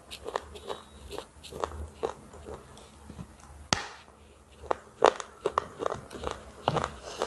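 Close-miked biting and chewing of a brittle, bark-like piece, giving irregular sharp crunches several times a second. The loudest crack comes just before the middle, and a denser run of loud crunches follows in the second half.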